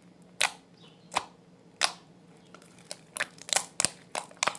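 Homemade slime squeezed and pressed in the hand, making sharp clicking pops as air pockets burst. Three single clicks come about 0.7 s apart, then a quicker run of clicks near the end.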